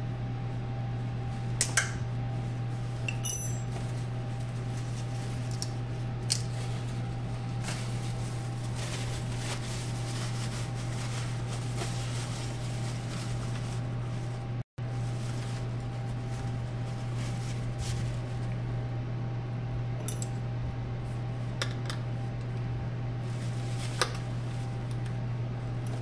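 Steady low machine hum with occasional sharp metallic clinks and taps from hand tools and parts being handled, one clink ringing briefly.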